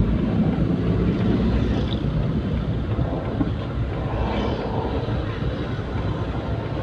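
Ambulance on the move: steady engine and road noise, with wind buffeting the microphone.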